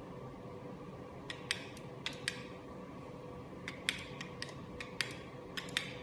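Wireless wall light switches in a demo kit being pressed: a series of sharp clicks in two bursts, starting about a second in, as the lamps are switched on and off. A steady low hum runs underneath.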